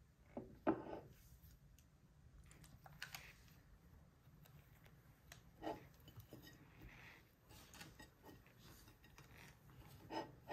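Faint handling sounds of a crepe on a plate being moved and lifted by hand: a few soft knocks and rustles, the loudest about a second in and another just before the end.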